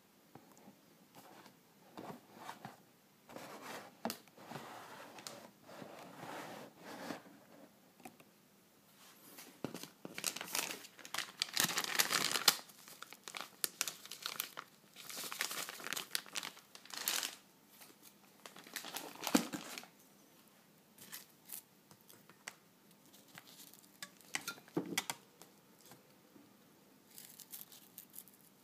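Plastic packet of nori sheets crinkling and rustling as it is opened and a sheet is pulled out, in irregular bursts that are loudest about halfway through, with a couple of soft knocks in the later part.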